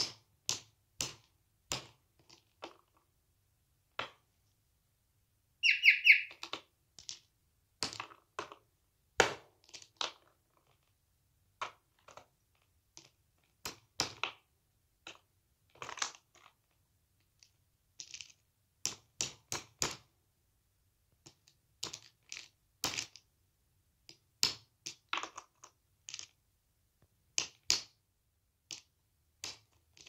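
A caged bird's beak pecking at and cracking an almond shell: irregular sharp cracks and taps, one or two a second with short pauses. A brief high-pitched squeak comes about six seconds in.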